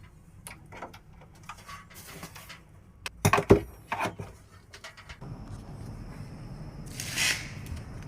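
Clicks and knocks of something being handled, loudest in a cluster about three and a half seconds in. About five seconds in, a steady low hum with a faint high whine sets in.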